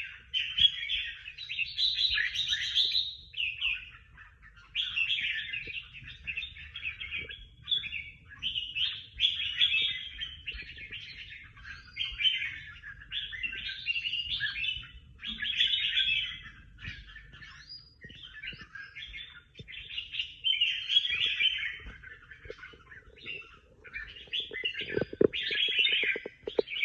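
A competition songbird singing loud, varied phrases of rapid notes in bouts of a second or two, with short pauses between. A short run of fast, low ticks near the end.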